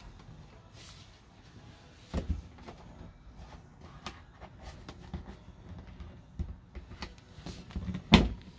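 Doors and cupboard flaps of a motorhome's fittings being opened and shut: a string of light clicks and knocks, with a louder knock about two seconds in and the loudest near the end.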